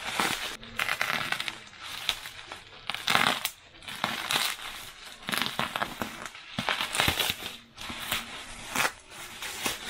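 Bubble wrap crinkling and crackling in irregular bursts as a parcel wrapped in it is slit with a box cutter and pulled open by hand.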